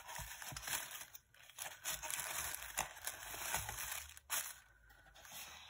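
Tissue paper rustling and crinkling as it is handled inside an opened cardboard mailer box, with a few light knocks. The rustling dies down after about four seconds, leaving a few soft ticks.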